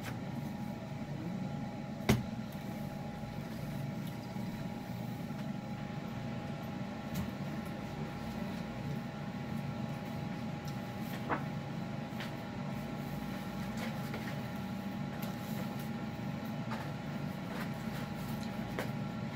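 A steady background hum with a thin steady whine in it, like a fan or appliance running in the room. A sharp click sounds about two seconds in and a smaller one about eleven seconds in.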